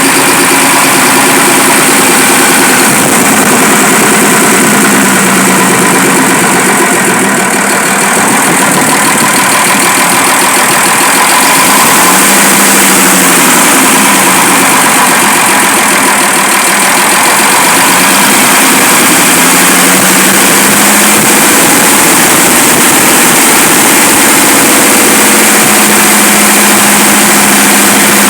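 Fiat 190 truck's diesel engine running loudly at idle, freshly restarted after sitting for years. About halfway through its note dips and comes back up a little, then settles.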